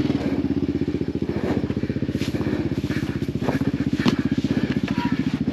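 ATV engine idling steadily with an even, pulsing beat, a few light clicks and knocks over it.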